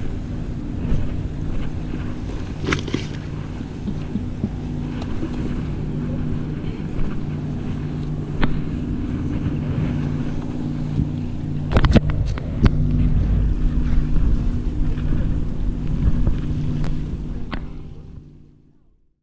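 Steady low drone of a boat engine on the water, with wind on the microphone and a few sharp knocks and clicks. The sound fades out near the end.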